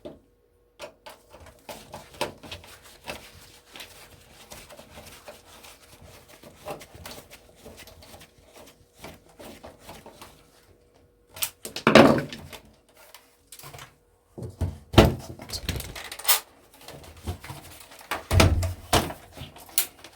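Hand unscrewing and handling of a small electronic device's metal and plastic casing: a run of small clicks and scrapes, with louder knocks and clunks about twelve seconds in and several more near the end.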